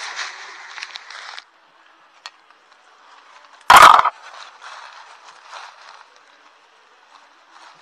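Footsteps crunching through dry bamboo leaf litter for about the first second and a half. A single loud thump about halfway through, then faint rustling and crackling.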